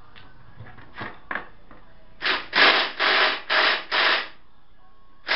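Ryobi impact driver hammering on a tight engine-mount bolt of a 1981 Honda ATC 200, in five short trigger bursts about half a second apart, after a few light clicks of the socket being fitted.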